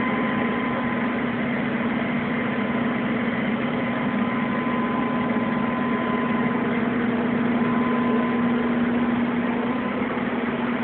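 Steady mechanical hum: an even noise with a constant low drone and a faint higher whine that fades out near the end.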